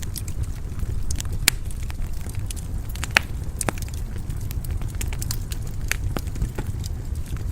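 Wood fire burning in a fireplace: a low steady rumble of flames with scattered sharp crackles and pops, the loudest pops about a second and a half and three seconds in.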